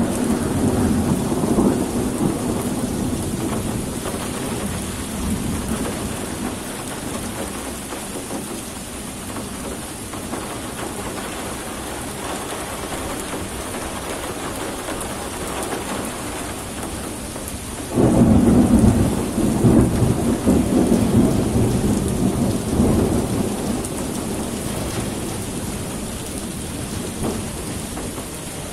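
Steady heavy rain with rolling thunder: a rumble fades away over the first few seconds, then about two-thirds of the way through a sudden loud thunderclap breaks into a long low rumble that slowly dies down.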